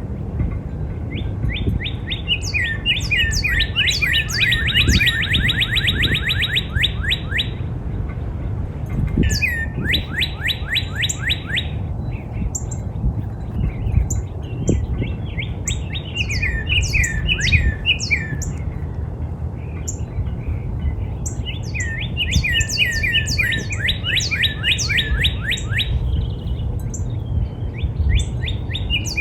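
Northern cardinal singing: phrases of rapid, repeated down-slurred whistles, in four bursts of song with short pauses between. A low steady rumble runs underneath.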